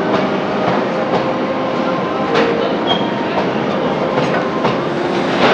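Container freight train rolling past at a station platform: the steady rumble of the wagons' wheels on the track, with irregular clicks as the wheels cross rail joints.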